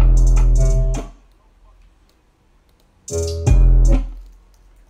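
Two short snippets of a trap beat played back and stopped, each about a second long: the first at the start, the second about three seconds in. Each has heavy 808 bass under a sustained synth-keys chord, and the sound cuts off between them.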